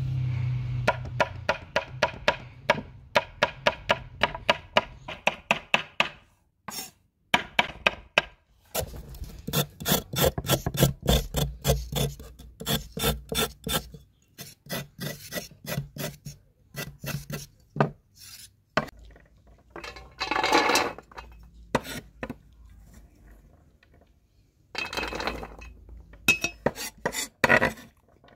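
A kitchen knife chopping carrots on a wooden cutting board: quick runs of blade strikes on the board, about four a second, broken by longer rasping stretches as the blade scrapes across carrot and board.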